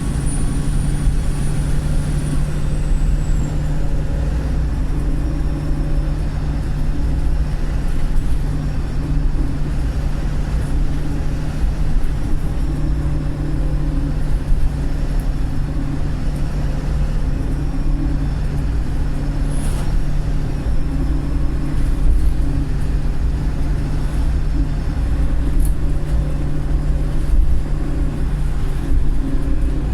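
Diesel engine of a Wright Pulsar single-deck bus pulling steadily, heard on board as a continuous low drone. Over it runs a faint high whistle that drifts slightly in pitch, the sound of its squealing, cracked turbocharger. Two brief high hisses come near twenty and twenty-six seconds.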